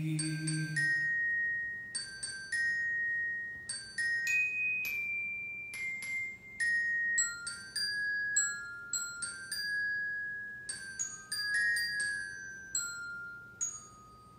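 A slow instrumental melody of single high, ringing notes, one note at a time, each struck and left to ring. The line wanders mostly downward and fades out near the end, with the last of a sung line dying away about a second in.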